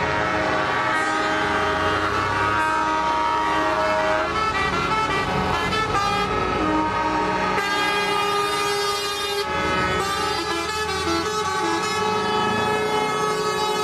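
Air horns of several semi-trucks in a passing convoy, sounding in long overlapping blasts of different pitches, with a low diesel engine rumble beneath in the first few seconds.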